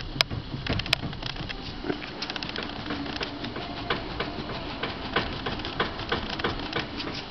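2008 Ford Fusion steering rack knocking: a long run of sharp, irregular knocks, several a second, the sign of a worn steering rack.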